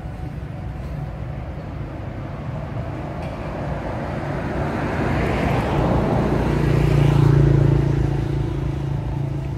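A motor vehicle's engine passing close by: a steady hum that grows louder to a peak about three quarters of the way through, then eases off a little.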